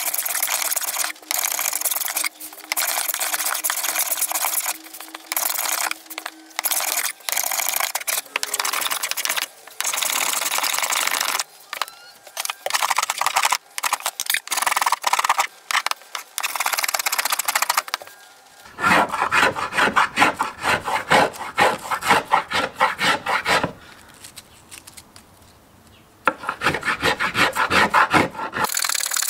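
Hand plane shaving a laminated cedar canoe paddle blade: a run of long scraping cutting strokes with short pauses between them. In the second half it changes to quicker, shorter and fuller strokes, with a quieter spell between two bursts.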